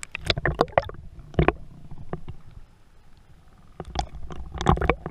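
Underwater sound in a swimming pool: clusters of sharp clicks and knocks with gurgling over a low rumble. One cluster comes in the first second, a single one about a second and a half in, and another near the end.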